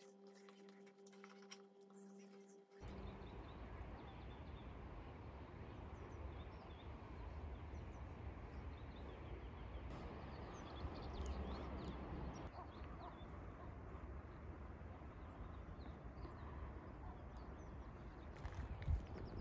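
A steady low humming tone stops about three seconds in. Outdoor sound then follows: wind rumbling on the microphone, with small birds chirping, and a few knocks near the end.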